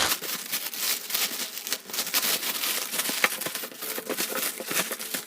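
Packaging of a boxed air fryer being handled and unwrapped: a dense, irregular run of crinkles and crackles.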